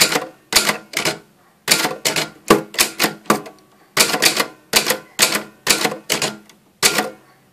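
Olympia Carina 2 manual typewriter being typed on, keys struck one at a time at an uneven pace of about two or three sharp clacks a second, with a couple of short pauses.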